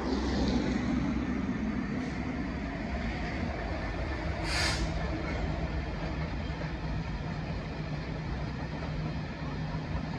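Class 66 diesel locomotive passing with a freight train of engineering wagons: engine running, then a steady rumble of the wagons' wheels over the rails. A short hiss comes about four and a half seconds in.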